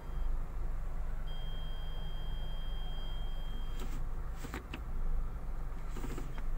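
Low steady hum of the Mitsubishi Xpander Cross's idling engine heard inside the cabin, with a few short clicks in the second half as the automatic gear lever is moved through its gate. About a second in, a thin steady high tone sounds for a couple of seconds.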